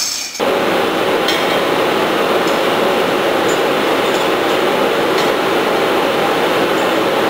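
Steady, loud mechanical noise of machinery running in a pump room, starting abruptly about half a second in, with a few faint metallic clinks of a wrench on the pipe's flange bolts.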